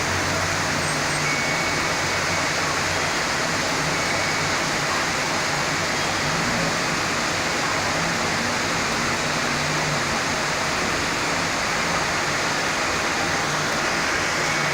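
Heavy tropical storm rain pouring down in a steady, even hiss, with no thunder in it.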